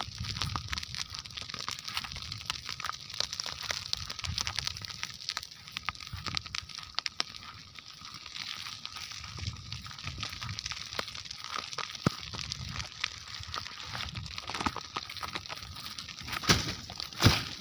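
Dry grass and stubble crackling in a grass fire: a dense, irregular stream of small sharp snaps, with a few louder cracks near the end.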